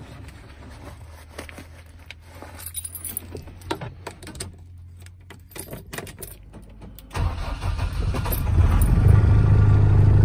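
Keys rattling and clicking in the ignition of a DAF 7.5-ton truck. About seven seconds in, its diesel engine cranks and starts, then settles into a steady idle.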